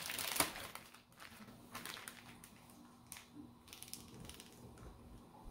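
Plastic zip-top freezer bag crinkling as it is handled and its zipper pressed shut, with irregular rustles and clicks, the loudest about half a second in.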